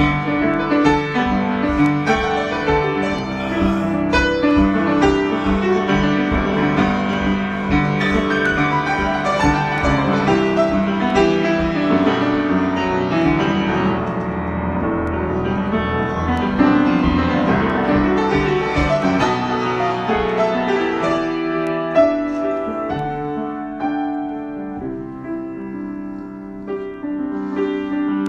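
Improvised instrumental music, a dense flow of overlapping notes and chords, growing softer about three-quarters of the way through before picking up again near the end.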